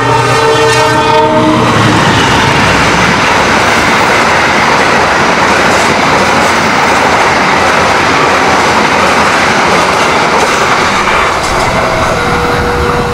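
Argo Dwipangga express train passing at speed. The locomotive's multi-tone horn sounds for about the first two seconds, then comes a loud, steady rush of wheels and coaches with clickety-clack on the rails as the train goes by.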